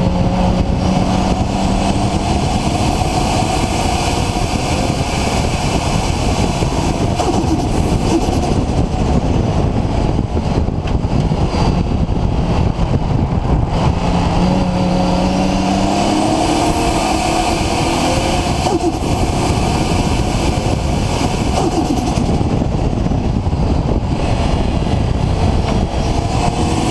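Nissan RB26 straight-six with a Garrett GTX4088R single turbo, running and revving, its pitch rising and falling over several seconds at a time.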